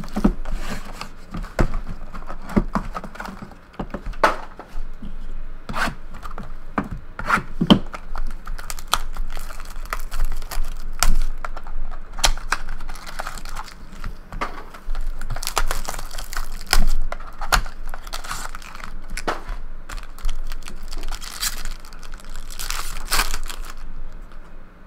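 A 2012 Topps Triple Threads card box being torn open and unpacked by hand: irregular tearing of cardboard and crinkling of the wrapping and foil pack, with many short sharp crackles.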